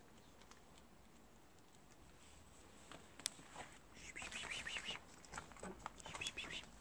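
Scratching and scraping of a cat's claws against the masonry as it pushes through a narrow gap in a wall cavity, coming in short bursts after a single sharp click about three seconds in.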